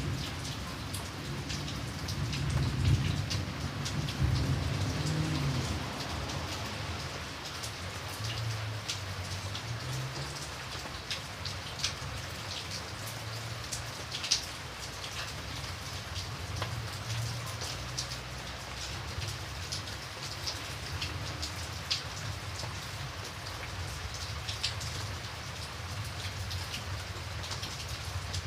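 Steady rain falling, with individual drops heard as sharp ticks over the even hiss. A low rumble of thunder dies away over the first several seconds.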